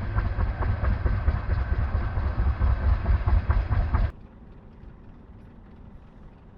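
Military helicopter noise heard from on board, a loud deep rumble that cuts off abruptly about four seconds in, leaving a faint background hiss.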